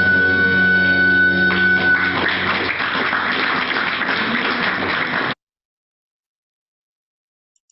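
Baroque dance music from a small string ensemble with violins ends on a held chord, followed by about three seconds of audience applause. The sound cuts off suddenly about five seconds in.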